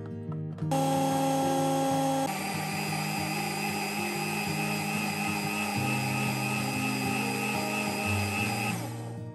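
Countertop blender motor running at full speed, blending chunks of watermelon and banana into juice. It starts about a second in, its tone changes after a couple of seconds, and it winds down near the end.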